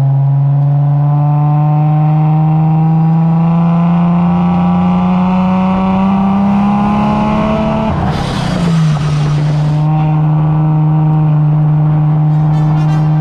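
Supercharged Lexus IS350 V6 engine in an Exocet kart pulling steadily up in revs for about eight seconds, then a gear shift with a brief rush of noise and a drop in pitch, after which it holds at a steady speed.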